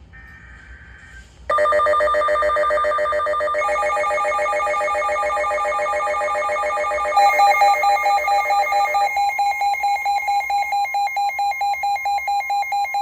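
Weather alert radio alarms going off. First come faint warbling data tones, then about a second and a half in a loud electronic alarm with a fast ringing trill starts. A second alarm of rapid pulsing beeps, about four a second, joins about seven seconds in, and the first alarm stops about two seconds later.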